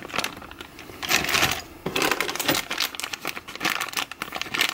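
Sealed plastic bags of RC car kit parts crinkling and rustling as they are lifted out of the box and handled, the crackle coming and going unevenly.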